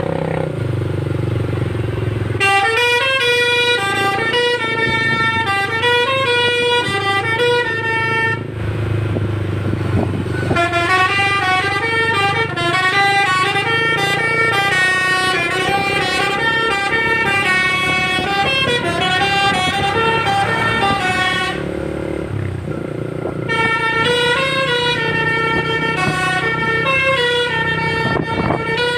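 A bus's Basuri telolet horn playing melodies of quickly stepping notes in three long runs, the first starting about two seconds in, over the steady hum of the bus's engine.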